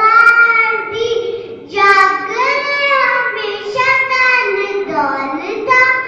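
A child's voice reciting a poem in a melodic, sung style, with long held notes in phrases and short breaths between them.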